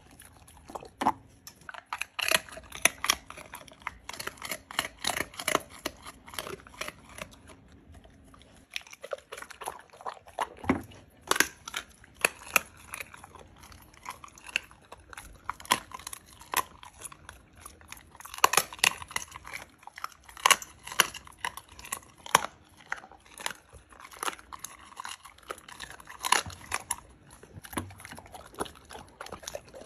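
A chocolate Labrador chewing and crunching food close up: a long run of irregular bites and crunches with brief pauses.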